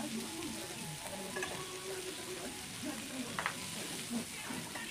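Chicken and vegetable kebab skewers sizzling on an electric grill plate, a steady hiss.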